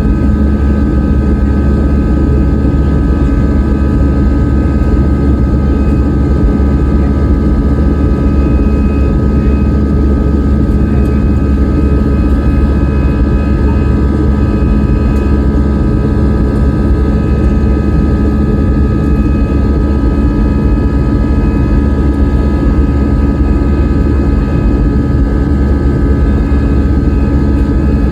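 Airliner cabin noise from inside the aircraft: the jet engines' steady drone over a heavy low rumble, with a few steady tones in it.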